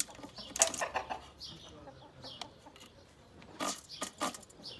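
Birds calling in short chirps and clucks, mixed with a few clicks and knocks as a tape measure and handsaw are handled against a wooden slat.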